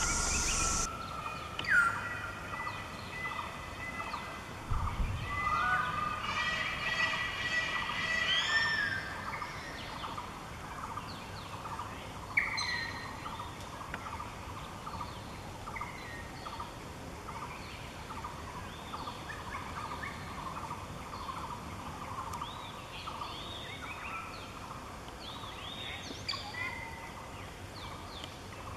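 A chorus of forest birds: many short whistling and chirping calls, busiest in the first ten seconds, with a brief low rumble about five seconds in.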